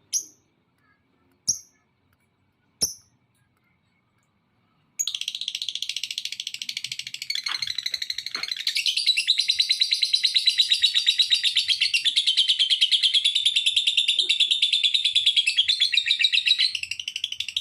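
Lovebird giving three short chirps, then, about five seconds in, breaking into a long, fast chattering trill (the 'ngekek' song) that runs on unbroken until near the end.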